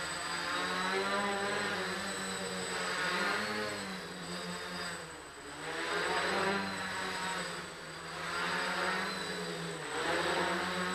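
RotorBits quadcopter's motors and propellers buzzing in flight, the pitch drifting up and down with throttle as it manoeuvres, with brief dips about five seconds in and near the end.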